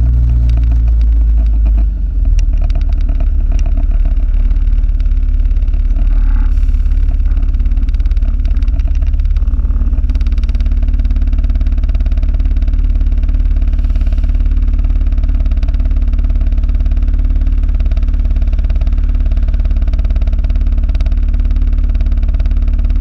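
Loud, steady low rumble of a moving vehicle, picked up by a camera clipped to its rear-view mirror; the title calls it an abnormal noise.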